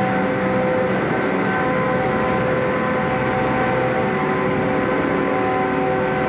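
Red chilli pulverizer grinding machine running: a loud, steady mechanical drone with a few held whining tones over the grinding noise.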